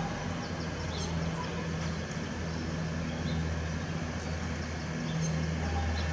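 C-130 Hercules transport aircraft passing overhead: the low, steady drone of its four Allison T56 turboprops, which swells and fades in slow pulses.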